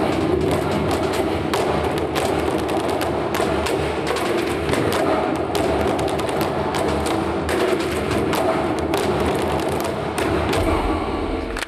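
Drumsticks striking plastic wheelie bins and other plastic containers in a fast, dense percussion rhythm, the lids and bodies giving thumps and sharp clacks.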